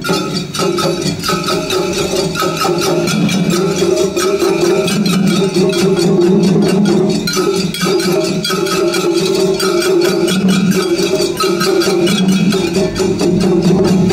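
Shagiri festival music played together by the musicians on four floats: taiko drums with fast, steady strikes of small hand gongs throughout.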